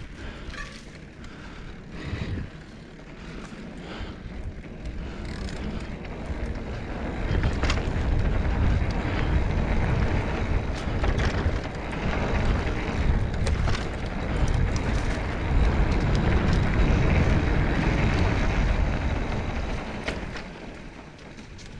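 Wind buffeting the microphone of a moving action camera, mixed with rattles and knocks. It grows louder about a quarter of the way in, stays strong, and eases off near the end.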